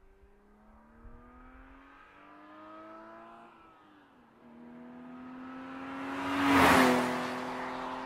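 BMW 323i (E36) with stock exhaust, its 2.5-litre straight-six accelerating hard as it approaches. The engine note climbs through a gear, falls back at an upshift around the middle, then climbs again. The car passes loudest near the end, with a rush of tyre and wind noise, and the engine note drops in pitch as it moves away.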